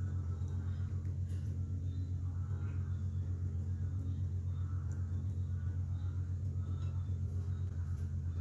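A steady low hum with a rapid, even pulsing, several beats a second, like a running motor or electrical hum in the room.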